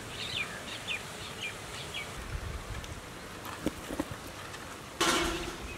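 A bird singing a run of short, down-slurred chirps through the first two seconds over steady outdoor background noise. About five seconds in comes a brief, louder rasping noise.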